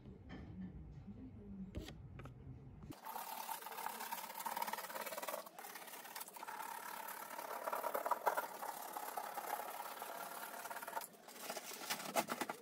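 A tubular roller-shutter motor hums low and steady for about three seconds while its limit stop is being set. It is cut off abruptly by a rough, uneven scraping at the plaster of a wall that runs until shortly before the end.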